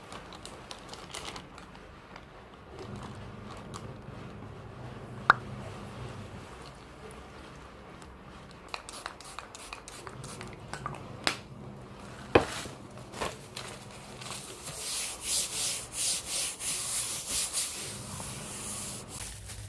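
A few sharp clicks and knocks, then a run of quick rhythmic rubbing strokes, about three a second, over a faint low hum.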